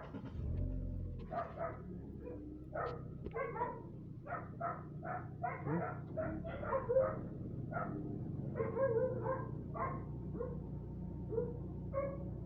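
A car engine starts and settles into a steady idle, louder for its first second or so. Over it a dog barks over and over, about two barks a second.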